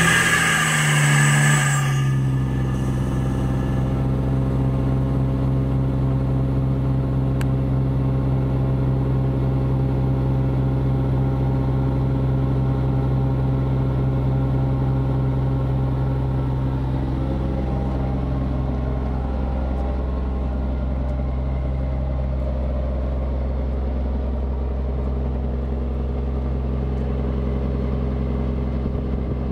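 Atlas Copco XAHS426CD portable air compressor's diesel engine running steadily. In the first two seconds a hiss of air fades out and the engine's pitch drops as it settles.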